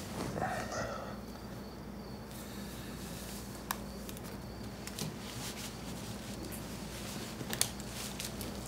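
Quiet room tone with a steady low hum, a soft rustle in the first second and a few faint, sharp clicks.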